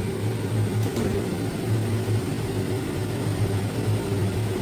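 A kitchen appliance fan running: a steady low hum with an even rushing noise.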